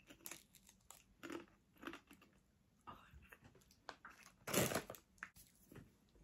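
Faint crunching as a plantain crisp is bitten and chewed. About four and a half seconds in comes a louder rustle of the foil crisp packet.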